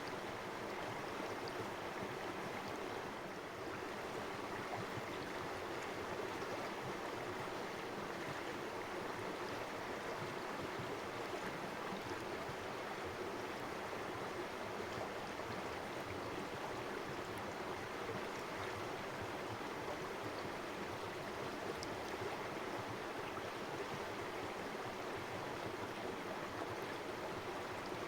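Shallow river running steadily, a continuous rushing and burbling of water over stones.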